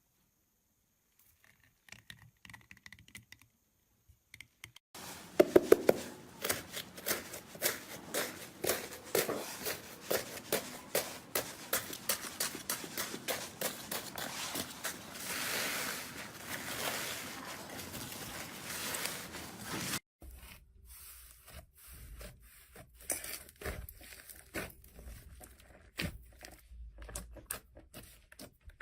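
Slime being worked by hand, making rapid sticky crackling and popping. It starts faintly, turns dense and loud about five seconds in, then becomes quieter and sparser about two-thirds of the way through.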